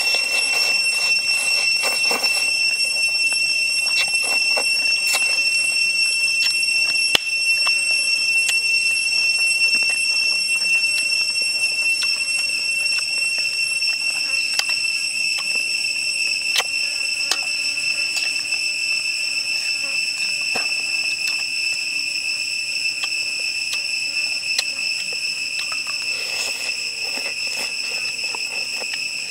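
Close-up eating sounds of a person slurping and chewing fish curry soup, with small clicks of chopsticks and spoon. Behind them runs a steady high-pitched drone of insects.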